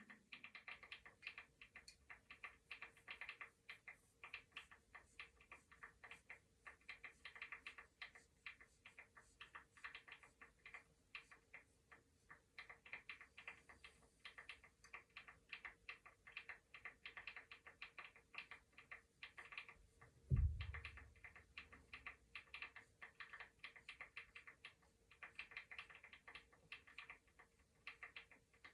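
Computer keyboard typing: fast, uneven keystroke clicks that go on almost without a break. There is a single low thump about twenty seconds in.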